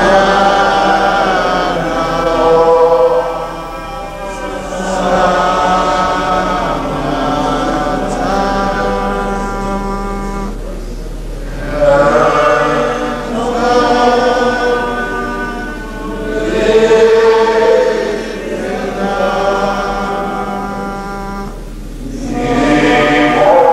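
A group of voices singing a slow chant in long held phrases, with short pauses between phrases, over a steady low hum.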